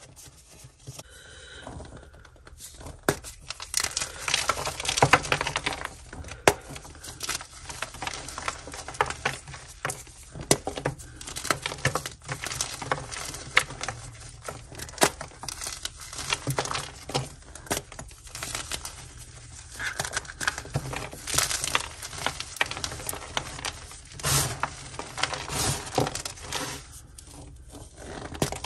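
Blocks of gym chalk coated in coloured powder being crushed and squeezed by hand: dense crunching and crumbling with sharp cracks as the blocks break apart, starting about two seconds in.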